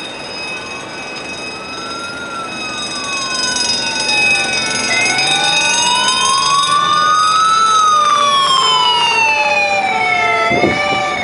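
Several emergency vehicle sirens sounding together and growing louder: a slow wail sweeping up and down over steady horn tones. Near the end the wail quickens into a wavering pitch, with alternating two-tone notes.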